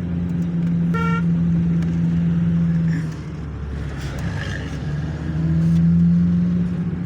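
Motor vehicle running on the road: a steady low engine and road drone that eases off for a couple of seconds midway and picks up again. There is a short beep about a second in.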